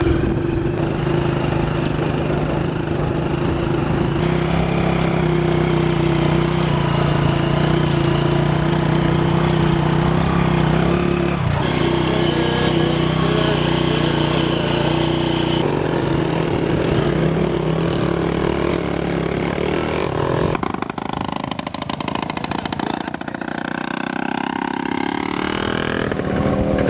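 Small motorcycle engine running steadily while riding. The sound changes abruptly a few times, and for the last several seconds it is quieter and lower.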